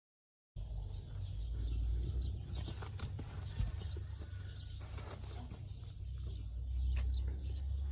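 Horse-grooming sounds: scattered clicks and knocks over a heavy low rumble, starting abruptly after half a second of silence.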